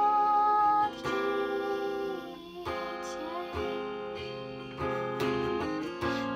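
Song accompaniment on acoustic guitar, strummed and plucked, in an instrumental passage between sung lines. A long held note rings through the first second.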